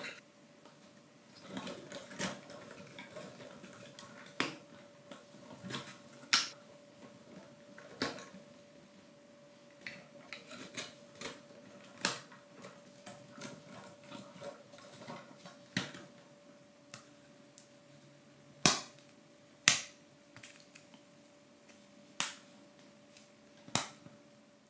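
Wooden pieces of a ROKR LK701 mechanical-gears locomotive puzzle kit tapping and clicking as they are handled and fitted together. The light taps come at an uneven pace, and four sharp clicks in the last third are the loudest.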